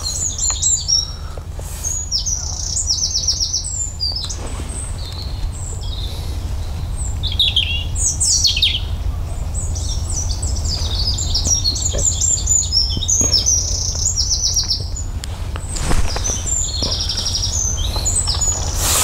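Several songbirds singing at once: chirps and quick trills of rapidly repeated notes, over a steady low rumble.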